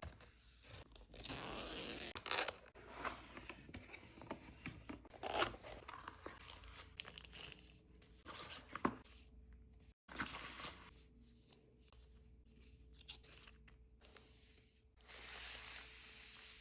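Packaging being handled and opened: irregular rustling, crinkling and tearing with scattered small clicks, busiest in the first half.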